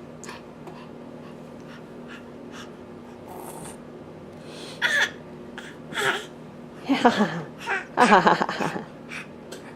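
Toddler making raspy, cough-like throat noises in place of words ('cough talk'): short bursts about halfway in, then longer, louder runs that fall in pitch near the end.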